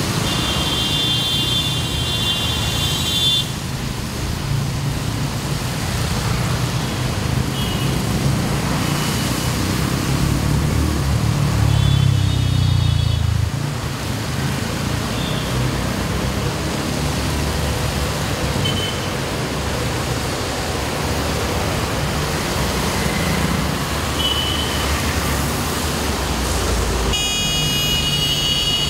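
Road traffic driving through a flooded underpass: a steady rumble of engines and tyres on the wet road. A vehicle horn sounds near the start and again near the end, with a few short toots between.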